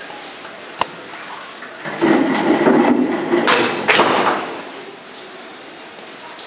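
A home-built chain-reaction machine at work: a sharp click about a second in, then a loud rushing, clattering noise with a couple of sharp knocks from about two seconds in until it dies away near the middle.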